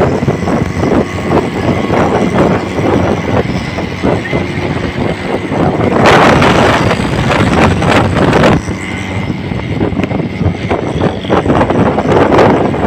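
Auto-rickshaw and motorcycle engines running at speed, heavily buffeted by wind on the microphone, with a louder surge about six seconds in.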